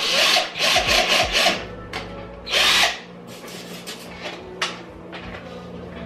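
Cordless drill running against the bathroom wall in two bursts: a rasping whir for about a second and a half, then a shorter one about a second later. A single click follows near the end.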